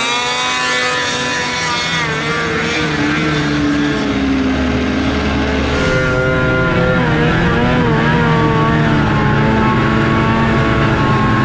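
Snowmobile engine running hard as the sled skims across open water, its pitch holding and then shifting about halfway through as the throttle is worked, over the hiss of spray thrown up behind it.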